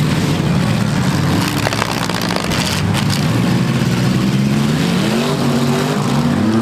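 Several demolition-derby pickup trucks' engines running and revving over one another, their pitch rising and falling, with one climbing steeply near the end. A few sharp knocks come about two to three seconds in.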